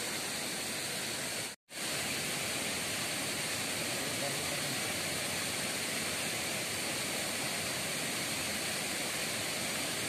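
Steady rushing of a small waterfall pouring into a pool, with a split-second dropout to silence about one and a half seconds in.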